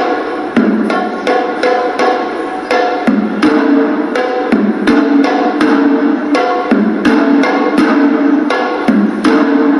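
Hewisi, traditional Sri Lankan temple drumming: drums beaten in a fast, dense rhythm of sharp strokes.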